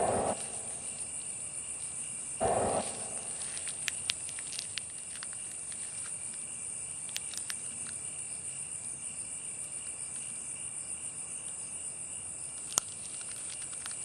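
Insects chirring steadily: a continuous high trill of crickets, with a few faint ticks and a brief soft swell about two and a half seconds in.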